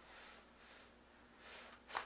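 Quiet breathing in a small room, soft swells of breath, with one brief sharp sound near the end.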